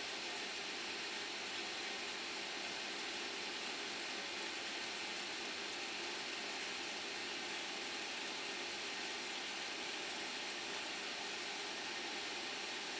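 Steady rushing noise of strong wind, gusting to about 15 metres a second.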